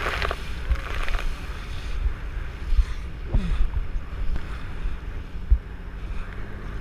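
Wind buffeting the microphone and water rushing and splashing around an inflatable banana boat towed at speed, with a hiss of spray in the first second and a few sharp thumps as it slaps over the wake.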